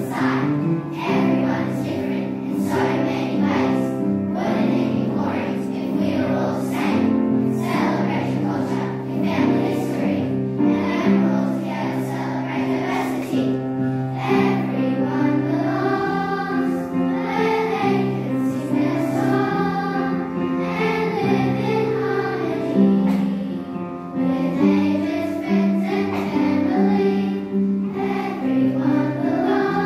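Children's school choir singing.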